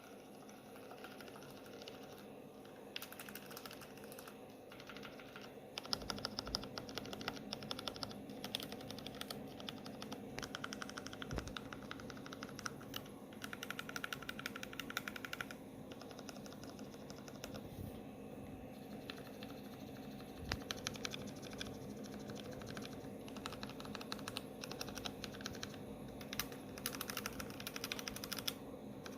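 Typing on a low-profile mechanical keyboard with lubricated Kailh Choc Red linear switches: fast runs of keystroke clicks in bursts. The clicks start sparse and grow louder about six seconds in.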